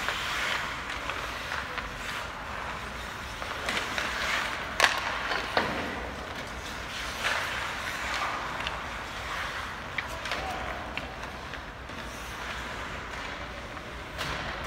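Hockey game play: skates scraping and carving on the rink surface, with scattered sharp clacks of sticks and puck, the loudest about five seconds in.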